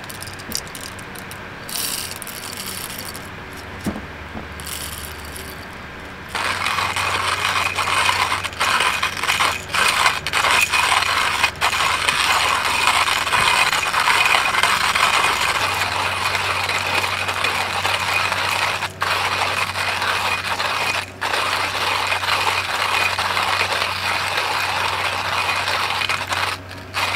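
Coffee beans rattling as they go into a hand coffee grinder. From about six seconds in, the grinder's burrs crunch the beans as the crank is turned steadily, with a few brief pauses.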